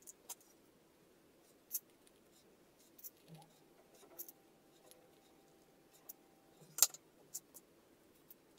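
About a dozen light, irregular clicks and taps of a small BMS circuit board being handled and turned over by hand, the sharpest about three-quarters of the way through.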